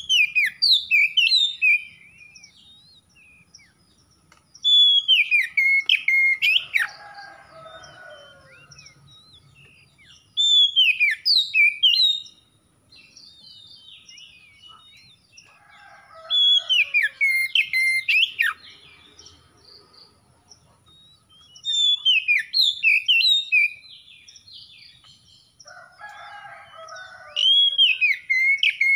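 Oriental magpie-robin singing: six loud phrases of sweet whistled notes that slide up and down, each about two seconds long, with pauses of a few seconds between them.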